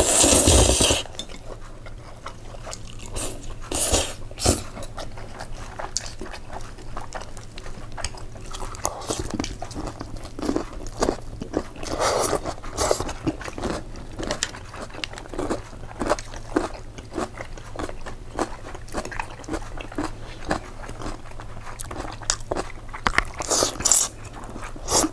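Close-miked eating: a person biting and chewing mouthfuls of pasta, a dense run of wet chewing clicks with some crunchy bites. The loudest eating noise comes right at the start, with further louder bursts around the middle and near the end.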